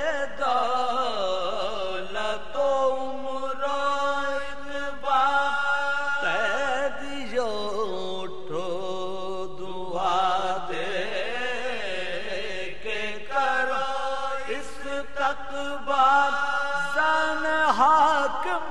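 A man chanting an Urdu marsiya in soz style: a slow, melodic lament with long held notes that waver and slide, and no instruments.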